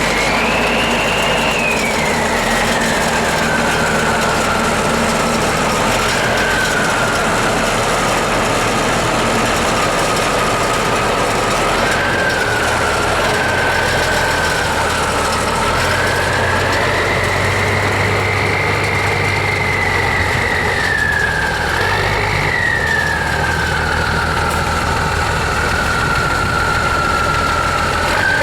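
Turbocharger whistle from an M35A2C deuce-and-a-half truck's turbocharged multifuel straight-six, a single high whine over the engine's steady running. The whine falls in the first few seconds, climbs again past the middle with the engine speed, and falls back near the end.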